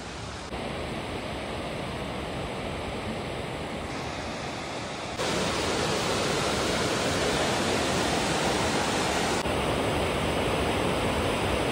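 Fast mountain river rushing over rocks: a steady roar of water that jumps suddenly to a louder level about five seconds in.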